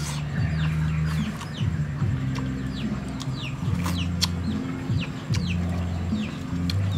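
Chickens in the background: many short, falling peeps, over a low hum that shifts in pitch every second or so. A few sharp clicks are scattered through.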